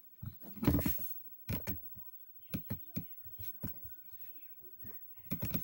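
Faint, irregular clicks and taps of a computer mouse being clicked and moved while drawing, a small cluster near the start and single clicks spread through.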